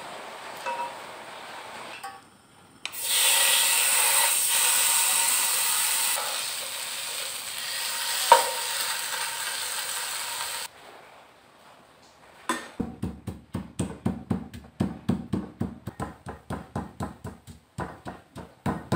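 Fermented fish paste (prahok) sizzling in a hot pan as it is stirred with a wooden spatula; the hiss cuts off suddenly. After a short pause, a stone mortar and pestle pounding ingredients in a steady rhythm of about four strokes a second.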